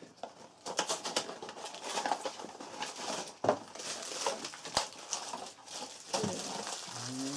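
Cardboard blind boxes and foil bags of vinyl mini figures being torn open and handled, a busy run of crinkling and crackling. A voice starts near the end.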